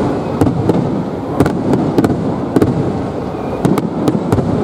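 Aerial fireworks shells bursting overhead: about a dozen sharp cracks and bangs at irregular intervals over a continuous rumbling haze of noise.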